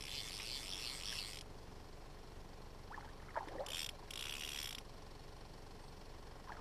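Fly line rasping through the rod guides and the angler's hand in two short strips, one at the start and a shorter one about four seconds in, with a couple of faint squeaks just before the second.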